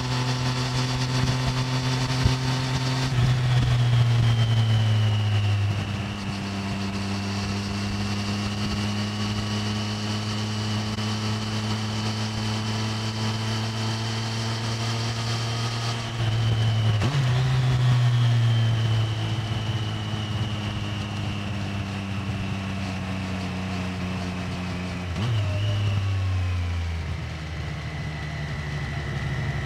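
Stock Triumph Street Triple 765R's three-cylinder engine running through its stock exhaust while cruising, a steady note with wind noise. Three times, a few seconds in, past the middle and near the end, the engine briefly gets louder and then settles to a lower steady pitch.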